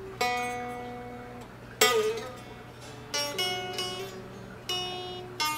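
Fender Telecaster electric guitar played slowly, single notes picked one at a time and left to ring and fade, the loudest about two seconds in.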